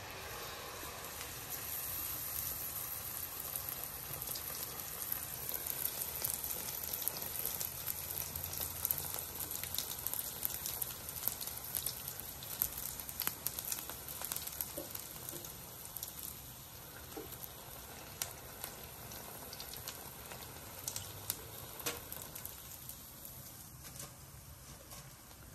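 A ring of sel roti batter frying in hot oil in a cast-iron skillet: a steady sizzle with many small crackling pops, dying down near the end.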